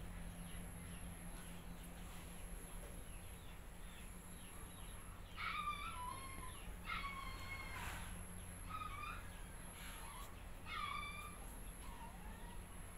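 Chickens calling faintly in the farmyard: four short calls spread through the second half, over a steady low hum.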